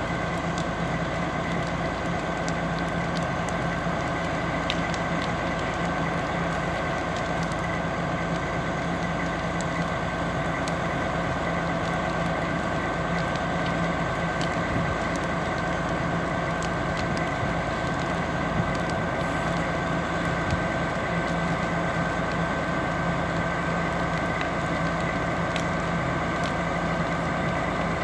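A fire engine idling steadily, a constant engine hum, with scattered sharp crackles and pops from the burning wooden house.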